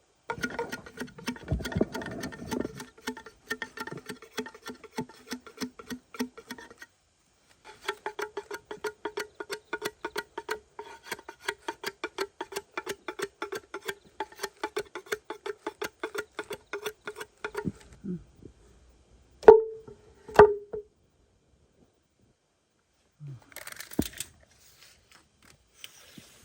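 Rapid, even knocking, about five strikes a second, on something hollow that rings with a clear pitch. It pauses briefly near the seventh second and stops near the eighteenth, followed by two louder ringing knocks.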